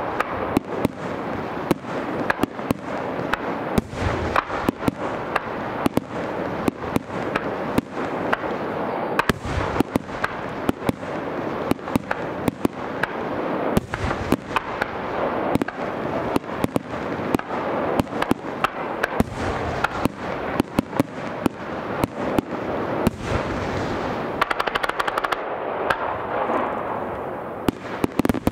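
Aerial fireworks going off in a dense, continuous barrage: sharp bangs several times a second over a steady crackle, with a few heavier bursts standing out.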